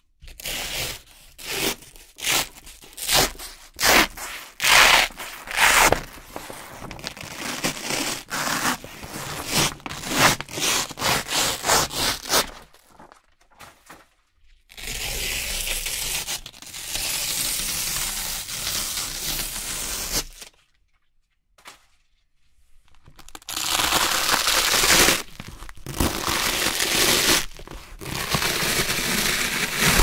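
Hook-and-loop (Velcro) strips being peeled apart: a quick run of short rips for the first twelve seconds or so, then two long, steady tearing peels several seconds each, with a short silence between them.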